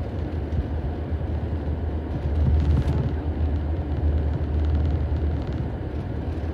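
Inside a moving car's cabin: a steady low rumble of road and engine noise.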